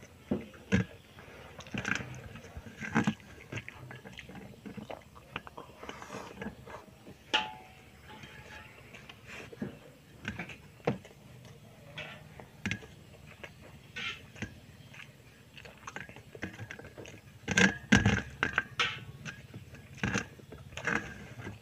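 Close-up eating sounds: a person chewing and smacking, with scattered short sharp clicks throughout and a cluster of louder knocks about eighteen seconds in.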